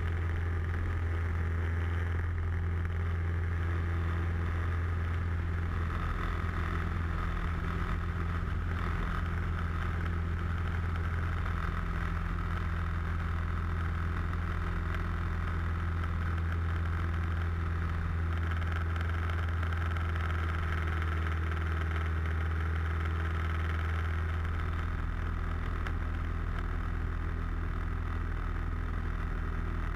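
Light aircraft's piston engine and propeller running steadily in flight, heard from inside the cockpit as a continuous low drone.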